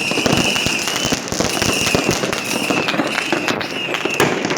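Many firecrackers and fireworks going off at once in a dense, continuous crackle of small bangs, with a high whistling tone that breaks off and comes back several times.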